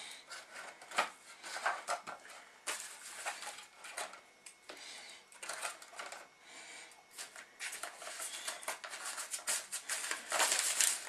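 Aluminium foil trays crinkling and rustling as chicken fillets are pressed and turned in blended tortilla-chip crumbs: irregular crackles, loudest near the end.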